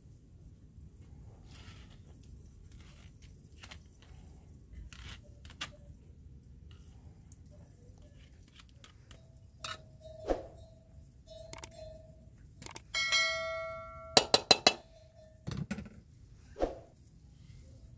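Metal spoon and aluminium pots knocking and scraping as cooked rice is scooped and tipped from a plastic colander into a pot: scattered light clinks, then about 13 seconds in a ringing metallic clang that dies away, followed by a quick run of sharp taps and a duller knock.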